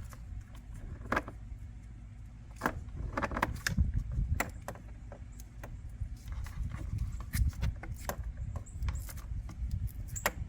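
Irregular light clicks, taps and rustles of a power cable being handled and tucked along plastic interior trim in a pickup cab.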